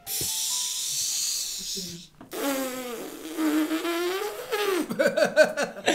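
A high, hissing buzz for about two seconds, cutting off abruptly, then a man laughing in long, drawn-out voiced cries.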